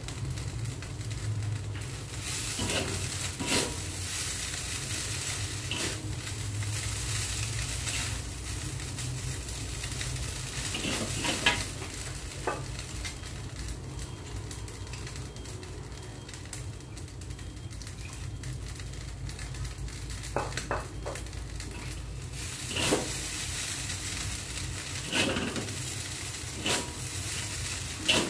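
Rice noodles (bihon) frying in a wok, a steady sizzle, with a dozen or so short scrapes and knocks of a spatula and chopsticks against the wok as they are stirred, more of them near the end.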